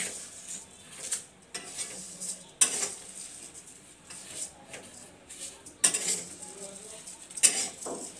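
Metal spatula scraping and clinking against a steel kadai as vermicelli is stirred and roasted dry over a gas flame, in irregular strokes about a second apart.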